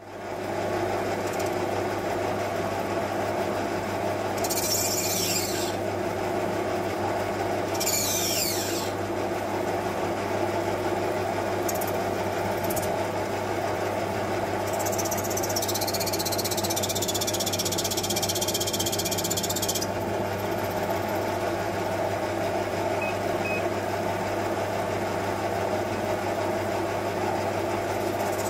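Metal lathe running steadily with its motor and gearing humming, while a turning tool cuts a brass rod. The cuts come as spells of high, hissy squealing: briefly about 4 and 8 seconds in, and a longer stretch from about 15 to 20 seconds.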